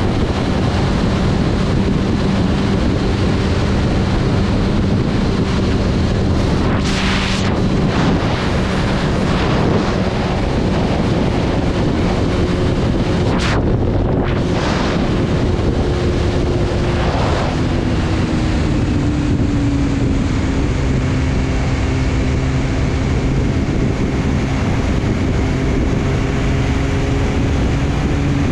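Wind rushing over the microphone of a motorcycle at road speed, with the engine's steady drone underneath. The engine note drops in pitch about two-thirds of the way through and then holds, and a few brief whooshes stand out along the way.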